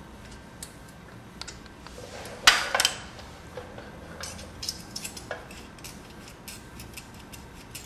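Metal hand tools clinking against the valve adjuster of a Honda 250 single-overhead-cam cylinder head while the tappet lock nut is set and tightened. A loud double clank comes about two and a half seconds in, followed by scattered light metallic clicks and taps.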